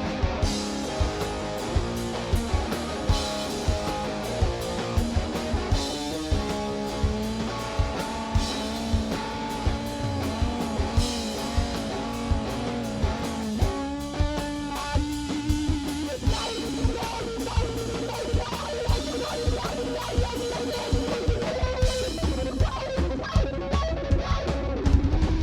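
Live rock band playing an instrumental passage: a lead electric guitar line with bent, wavering notes over a drum kit keeping a steady beat.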